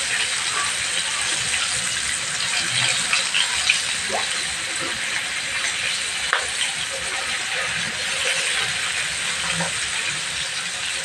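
Coated chicken pieces frying in oil in a wok: a steady sizzle with fine crackling, and a couple of light clicks of the utensil against the pan as the pieces are turned.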